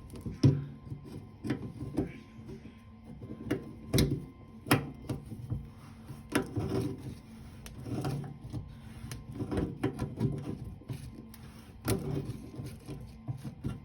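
Irregular clicks, taps and short scrapes of metal faucet parts being handled: the retaining collar over a Moen cartridge being threaded back on by hand, with the knocks loudest about half a second in, around four to five seconds in, and near twelve seconds.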